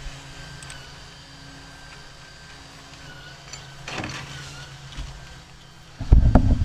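Steady low hum of a running motor, with a brief light clink about four seconds in and a louder low rumble starting near the end.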